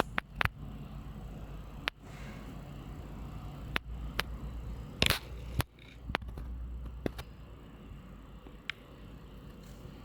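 Scattered sharp clicks and taps, about eight of them at uneven intervals, the loudest about five seconds in, over a steady low hum: handling noise.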